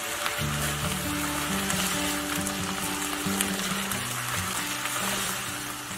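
Sliced onions and chopped chili peppers sizzling and crackling in a frying pan as they are stir-fried with a spatula. Background music plays over it: low held notes that begin about half a second in.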